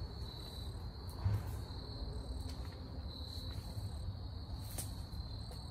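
Crickets trilling steadily in one continuous high note, over a low rumble, with a single sharp click near the end.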